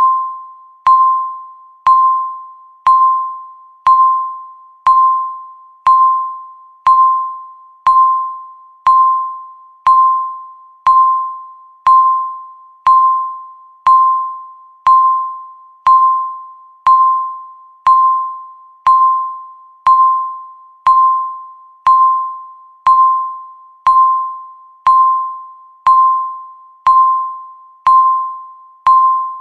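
Countdown timer beeping once a second, each beep marking one second gone. Every beep is a single clear tone that starts sharply and fades away before the next.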